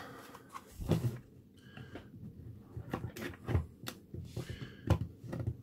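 Knife blade working between silk PLA 3D-printed pieces to prise them off the box, giving a scattering of small clicks and knocks of metal on plastic.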